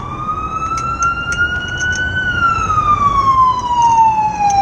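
An emergency vehicle siren in a slow wail: it rises in pitch for about two seconds, then falls slowly. A few light clicks sound over it, mostly in the first couple of seconds.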